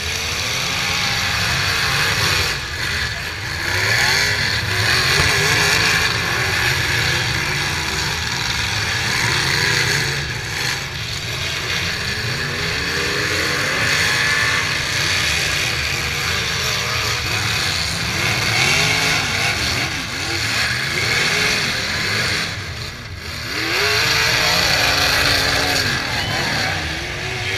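Engines of several modified demolition derby cars running hard at once, revving up and down in overlapping waves, with a short lull about 23 seconds in.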